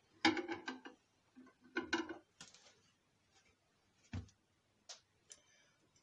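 China plates clattering as a dish of baked apples is taken out of a microwave: two quick runs of clicks and scrapes, then a few single knocks as the plate is handled and set down.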